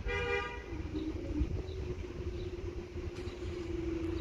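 Train horn sounding a short blast in two notes together, the second of a pair of toots, cutting off under a second in. A steady hum carries on afterwards.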